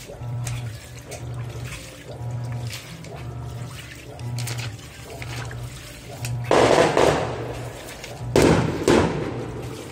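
Panasonic NA-F160B5 16 kg top-load washing machine agitating a full load of T-shirts in water: the motor hums and swings back and forth about once a second, with two loud sloshing surges of water and clothes in the second half.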